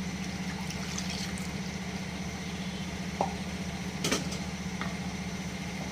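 Milk heating in a pan of hot ghee, a steady sizzle over a constant low hum, with two light clinks about three and four seconds in.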